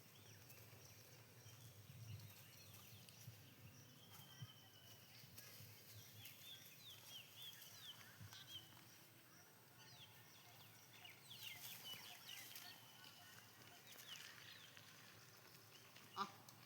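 Faint outdoor ambience with small birds chirping softly, many short high chirps from about four seconds in, and a single sharp tick near the end.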